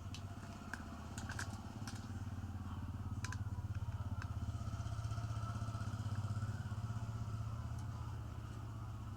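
A low, pulsing engine hum swells over several seconds and then fades, with a few small sharp clicks in the first few seconds.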